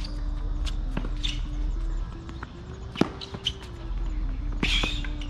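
Tennis rally on a hard court: sharp pops of the ball off the strings and the court, about a second in, loudest about three seconds in, and again near the end. A faint steady tone that slowly steps in pitch runs underneath.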